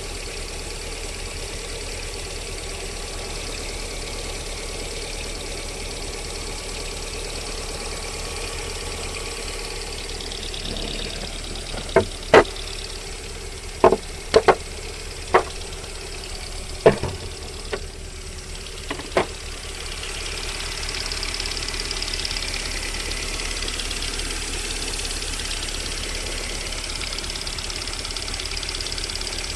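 VAZ-21127 1.6-litre 16-valve four-cylinder engine idling while warming up, with a knock that the owner cannot explain and that appears during warm-up until about 40 °C. Midway, about seven sharp separate knocks stand out louder than the engine. About two-thirds in, the engine sound grows somewhat louder.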